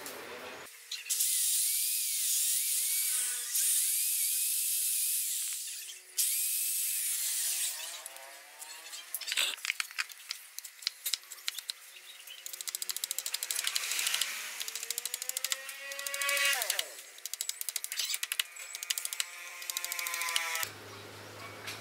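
Handheld electric drill boring into a bamboo handle in a couple of runs during the first third, its motor whine rising and falling. After that, a long series of quick, irregular knocks as a machete-style knife chops and shaves bamboo on a wooden block.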